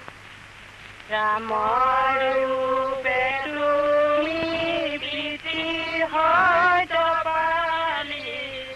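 A single voice chanting a prayer in long held notes that slide up into each new pitch, starting about a second in.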